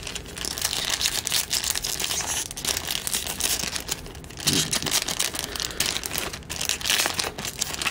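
A trading-card pack's wrapper being torn open and crinkled as the cards are handled: a dense crackling rustle broken by a few brief pauses.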